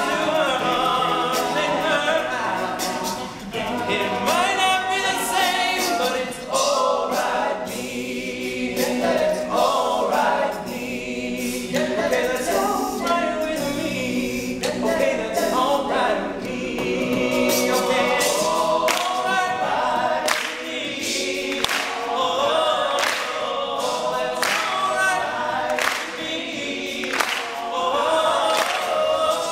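Male a cappella group singing in close harmony behind a lead voice, with sharp percussive clicks keeping a beat throughout.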